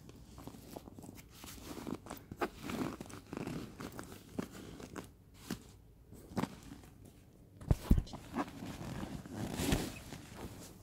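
Handling noise of a handbag and a soft cloth: irregular rustling and crumpling as the cloth is moved and folded against the bag, with several sharp clicks, two close together about eight seconds in.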